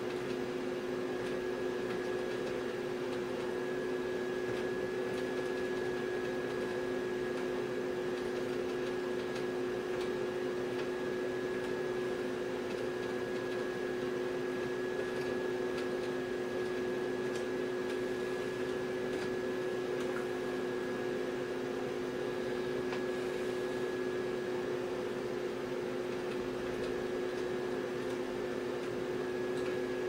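Steady electrical hum and fan noise from rack-mounted broadcast equipment, unchanging throughout, with a few faint clicks of front-panel buttons being pressed.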